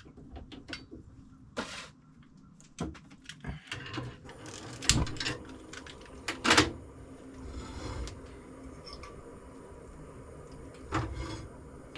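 A galley stove being lit and a pan set on it: a run of sharp clicks and clattering knocks, then a steady hiss from about four seconds in as the burner runs.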